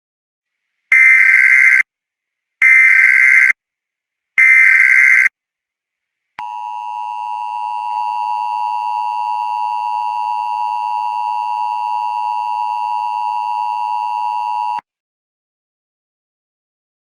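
Emergency Alert System tones: three short warbling data bursts of the SAME digital header, each just under a second long. These are followed by the steady two-note EAS attention signal, which holds for about eight seconds and then cuts off suddenly.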